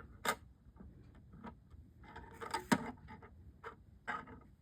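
Scattered light clicks and taps of thin metal cutting dies being set down and arranged on a die-cutting machine's plate, with one sharper click a little before three seconds in.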